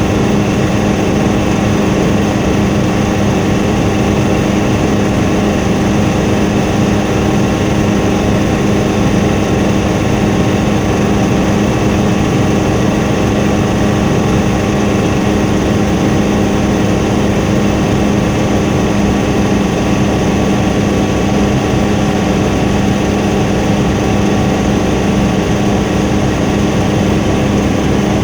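Helicopter engine and rotor running in a steady, loud drone, with a strong low hum and several steady tones above it.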